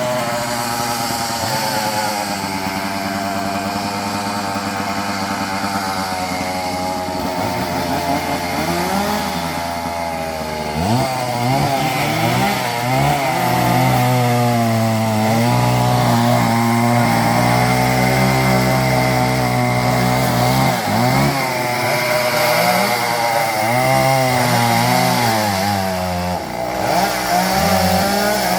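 A two-stroke chainsaw running, its engine pitch rising and falling again and again as it is revved. It gets louder about eleven seconds in.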